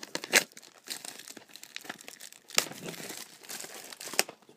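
Plastic wrapping on a trading-card box being crinkled and torn open: irregular crackling with a few sharp snaps.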